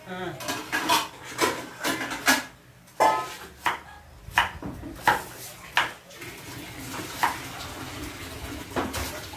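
Kitchen knife chopping lemongrass stalks on a round wooden cutting board: sharp, irregularly spaced knocks of the blade on the wood.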